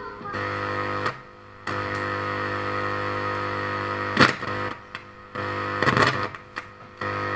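A steady electrical hum buzzing from the LED TV's speakers as a resistor is touched to points on the audio board, a signal-injection check of the sound stage. The buzz cuts out and comes back three times as contact is broken and made, with sharp crackles about four and six seconds in.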